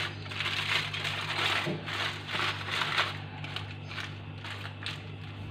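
Aluminium foil crinkling and crackling in irregular bursts as hands roll and press a foil-wrapped log of chocolate-biscuit mixture.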